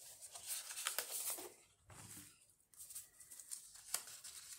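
Large sheets of decorative paper rustling and sliding on a tabletop as they are handled, in two spells with a few light taps.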